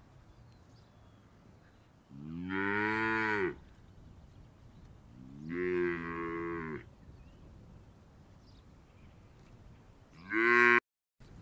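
Three mooing calls of a bovine animal. The first two each last over a second, and the third is short and cut off suddenly.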